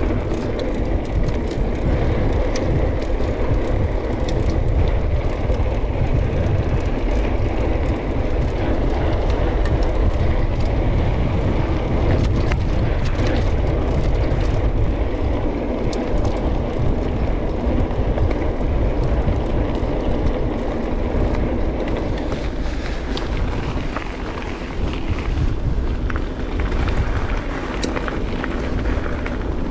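Mountain bike descending at speed: constant wind rumble on the action camera's microphone mixed with tyre noise on the trail, and frequent small clicks and rattles from the bike over the ground.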